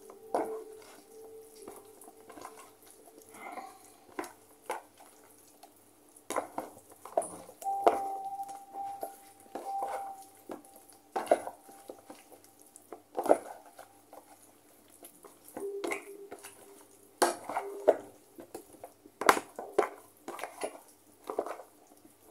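Hands mixing pieces of marinated pork in a plastic food tub: irregular wet squishes and light knocks and clicks of the tub. A faint steady hum comes and goes in the background.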